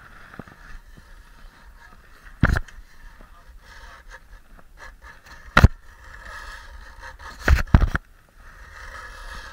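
Handling noise on a body-worn camera: a few sharp knocks and a short run of scuffs as a jacket sleeve brushes against it, over a steady low hiss.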